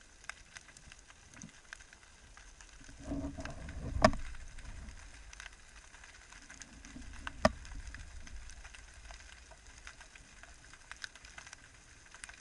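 Underwater sea noise heard through a camera housing: a faint steady hiss full of scattered small crackles, with a short muffled rumble about three seconds in and two sharp loud clicks, one about four seconds in and one about seven and a half seconds in.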